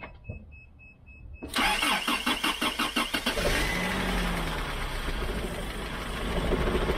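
A pulsing electronic beep, then about a second and a half in the starter cranks the 22R-E four-cylinder engine for about two seconds until it catches. It settles into a rough-running idle with shakes and rattles from a definite misfire, which the owner thinks is timing related: the cam and timing chain.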